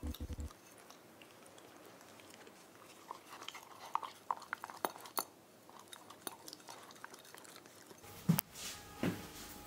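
Pembroke Welsh Corgi puppy licking an emptied glass food bowl: soft, irregular lapping and clicks of tongue on glass. Near the end come two louder thumps.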